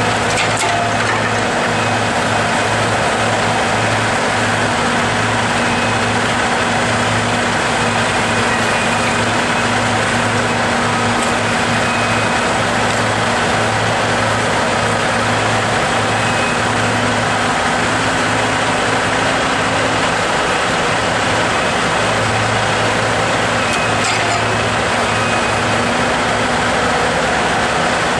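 Log truck's diesel engine running steadily at an even speed with a constant low hum.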